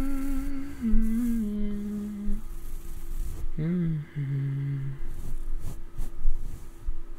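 A man humming a slow, wavering tune close to the microphone in two phrases, the second ending about five seconds in. A soft brushing hiss on the microphone runs under the first phrase, and a few short brush taps follow near the end.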